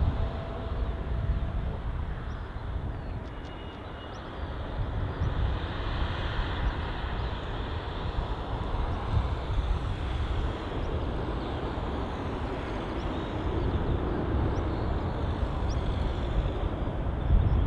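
Jet airliner engines, a steady broad roar with a heavy low rumble that dips a few seconds in and swells again.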